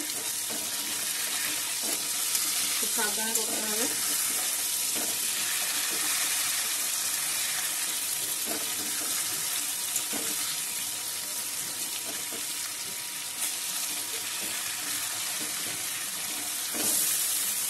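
Spice-coated hilsa steaks frying in hot mustard oil in an aluminium wok: a steady sizzle, with a few light clicks of the metal spatula against the pan. The fish is being seared in its spice paste before water is added for the thin curry.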